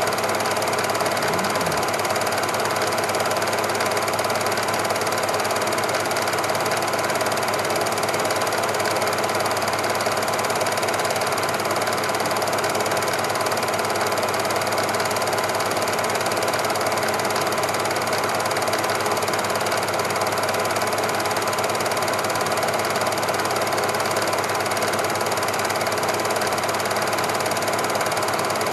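Super 8 film projector running, a steady mechanical whirr with a rapid, even clatter that does not change.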